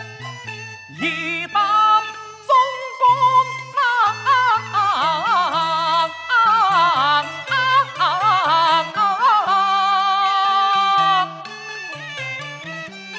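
Traditional Chinese opera ensemble playing. A high lead melody wavers and slides in pitch over steady low accompanying notes, then the loud melodic passage stops suddenly about eleven seconds in, leaving softer music.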